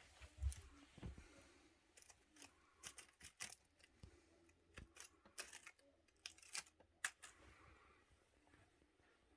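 Faint scattered scratches and clicks of a cat's paws and claws batting at a string and scrabbling on the floor, with a couple of dull thumps about half a second and a second in.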